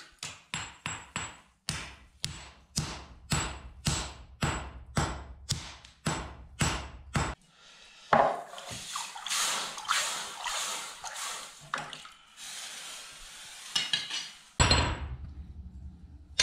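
A swordsmith's hand hammer striking red-hot steel at the forge, about two blows a second for some seven seconds. Then the hot blade is plunged into a wooden tub of water and hisses steadily as it is quenched, with a louder rush of noise near the end.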